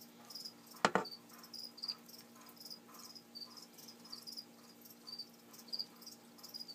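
Crickets chirping: short high chirps repeating about twice a second. A single sharp click comes about a second in, over a faint steady hum.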